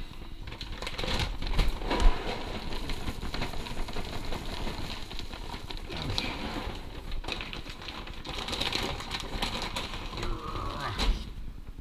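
Plastic pet-food bags crinkling and rustling as they are handled, a dense run of crackles and small clicks, with a sharp knock about two seconds in.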